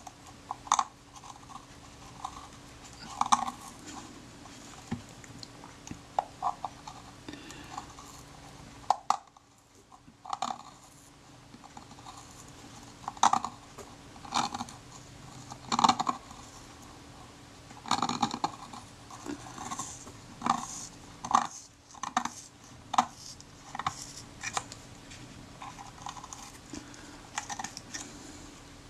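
Scalpel blade scraping and clicking against the metal back of a Kodak Retina IIa camera as it is worked under the leather covering to lift it, in short irregular scratches with a couple of brief pauses.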